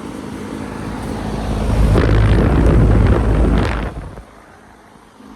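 Heil 5000 3-ton central air conditioner condenser running, with a loud low rushing rumble that builds over the first couple of seconds and drops away sharply about four seconds in.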